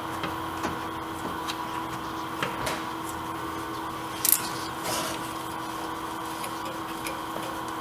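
A steady electrical hum, with faint scrapes and light clicks of a spin-on oil filter being twisted onto its threads by hand, and one sharper click about four seconds in.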